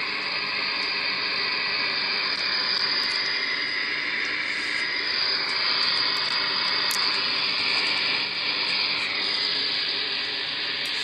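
Shortwave radio static from an RTL-SDR receiver with an HF upconverter: a steady hiss with no station audible, with faint whistling tones that waver in pitch partway through.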